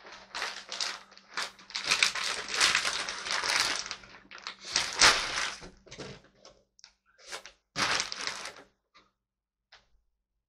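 Irregular rustling and crackling noises, loudest about halfway through, thinning out to a few faint clicks near the end.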